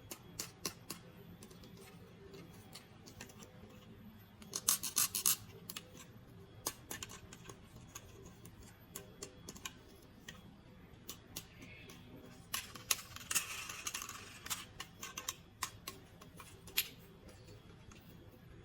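Hands unpacking a plastic toy: scattered clicks and taps with two short spells of crinkling and rustling packaging, about five seconds in and again near the two-thirds mark.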